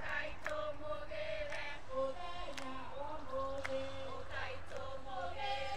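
A group of voices singing a slow song with long held notes that step between pitches, with a few sharp claps scattered through.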